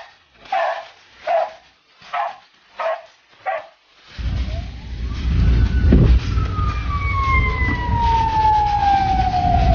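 A dog barking about five times in a regular run, then the inside of a moving car: a steady low engine and road rumble, with a long, slowly falling wail starting about two seconds after the rumble sets in.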